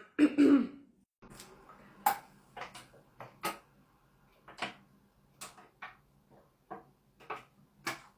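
A woman's short burp in the first half second, then a string of brief, quiet throat and mouth sounds, one every half second to second.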